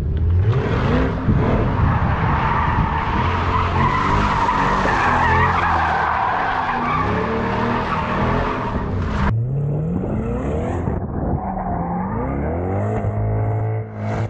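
C8 Corvette's V8 revving hard while its rear tires spin and squeal loudly in donuts. The tire squeal cuts off suddenly about nine seconds in, leaving the engine revving up and down.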